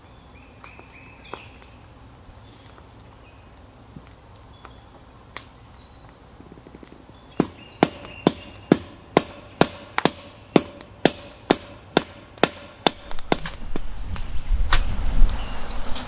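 A run of about a dozen hammer blows on metal, roughly two a second, each with a short ringing note, starting about halfway in. Near the end the blows give way to rustling and handling noise.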